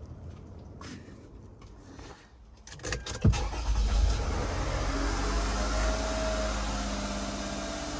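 2008 Lexus RX350's 3.5-litre V6 cranked by the starter and catching about three seconds in, revving up briefly and then settling into a steady idle on freshly installed spark plugs.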